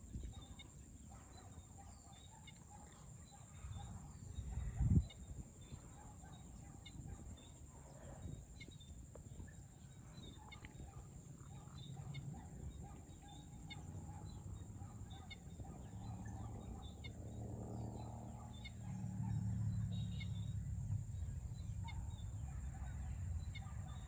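Chickens clucking faintly over a steady high-pitched drone, with one low thump about five seconds in.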